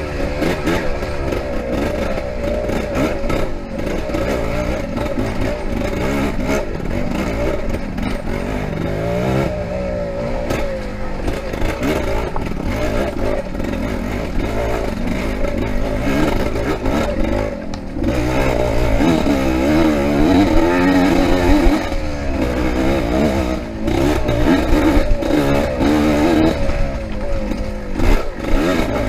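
Yamaha IT 200 two-stroke single-cylinder enduro motorcycle being ridden hard off-road, the engine's revs rising and falling constantly as the rider works the throttle, a little louder through the second half.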